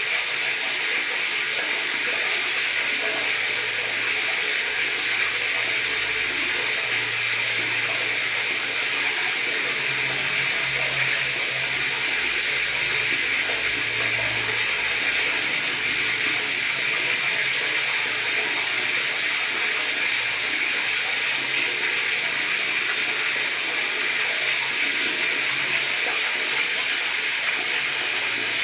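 Tap water running steadily into a bathtub, gurgling and splashing.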